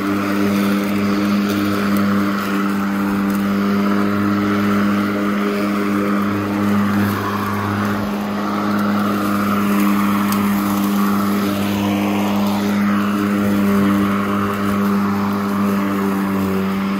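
Worx Nitro 40V 20-inch cordless push lawn mower running while cutting grass: an even electric-motor and blade hum with a rushing whoosh of air and clippings that swells and eases a little as it is pushed along.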